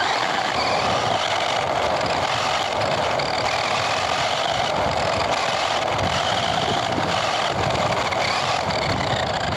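Radio-controlled car running, heard from on board: a high motor whine that rises and falls in pitch over steady rumbling running noise.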